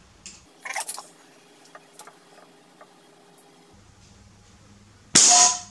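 A few small clicks and rustles of handling, then, a little over five seconds in, a single shot from an Artemis PR900W regulated PCP air rifle: a sudden loud crack with a short noisy tail.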